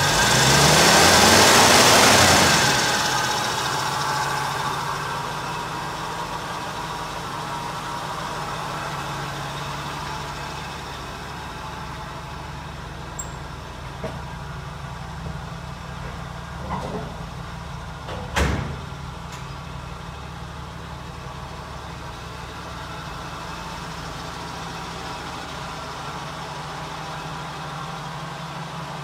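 1985 Jeep CJ7's engine blipped once and settling back to a steady idle, growing fainter as it settles. One sharp knock sounds about eighteen seconds in, with a few light clicks just before it.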